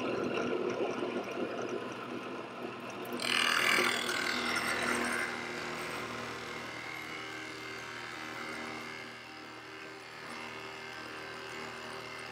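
Drill press running steadily with a large Forstner bit boring holes in a clamped hardwood board. A louder, brighter burst of cutting noise starts about three seconds in and lasts about two seconds.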